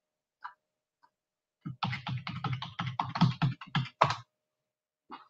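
Computer keyboard typing as a password is entered: a quick run of keystrokes lasting about two and a half seconds, ending on a harder stroke, then one more click near the end.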